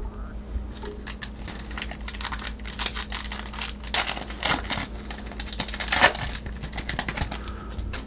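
Foil trading-card pack wrapper crinkling and rustling as it is torn open and handled, with many quick irregular crackles and clicks.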